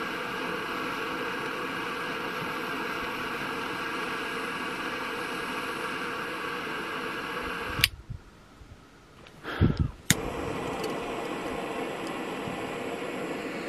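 Butane jet torch lighter flame hissing steadily. About eight seconds in the hiss cuts off with a click; after a couple of knocks, another click brings the steady jet hiss back.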